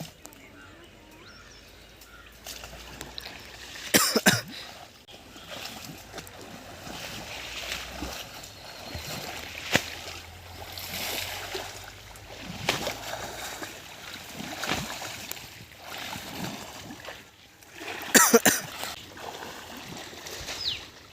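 Water splashing and sloshing as people wade and thrash through a shallow canal, beating the water to drive fish out of hiding toward a net. There are louder splashes about four seconds in and again near the end.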